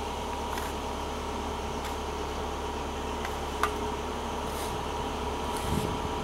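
Steady mechanical hum with a constant tone, and a single sharp click about three and a half seconds in.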